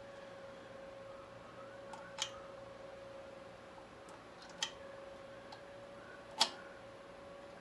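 Three sharp metal clicks a couple of seconds apart, the last the loudest, as a VW Beetle rocker arm assembly is handled and seated onto the cylinder head studs. A faint steady hum runs underneath.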